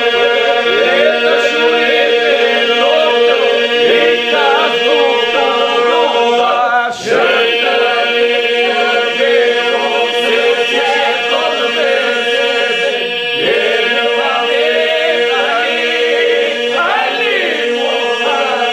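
A devotional song sung by a small group of voices over a steady, unbroken low drone, with the melody line bending and breaking above the held note. There is a brief dip about seven seconds in.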